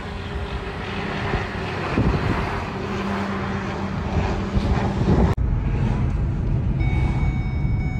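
Car on the move: steady road and engine rumble. An abrupt cut about five seconds in starts another stretch of the same rumble, with a few faint steady high tones coming in near the end.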